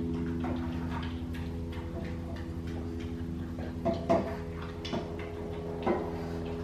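A pug eating from a stainless-steel bowl: irregular clicks and clinks of food and teeth against the metal bowl, a few louder ones about four and six seconds in, over a steady low appliance hum.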